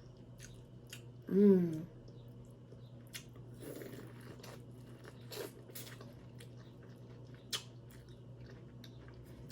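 Close-miked eating of grilled corn on the cob: scattered crunchy bites and chewing clicks, with a brief voiced hum from the eater about a second and a half in.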